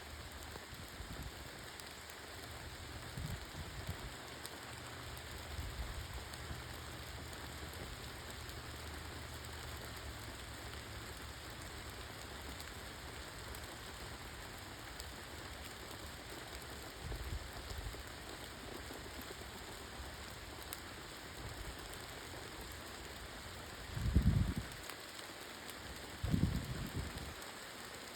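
A steady, even hiss with a low hum through the first third, and a few dull low thumps near the end.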